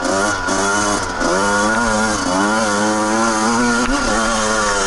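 Dirt bike's two-stroke engine revving as the throttle is worked, its pitch rising and falling again and again without a break.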